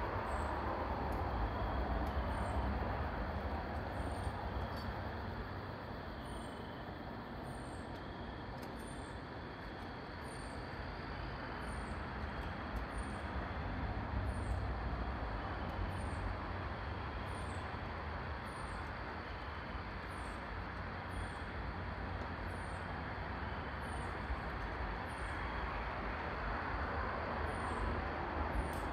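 Outdoor night ambience: a steady rushing noise, strongest in the low end, with a short high chirp repeating about once a second.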